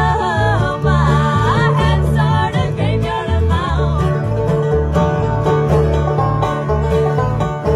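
Acoustic bluegrass band playing live: five-string banjo, mandolin and acoustic guitars over a steady rhythm. A melody bends up and down in pitch over the first few seconds, and the banjo takes the lead near the end.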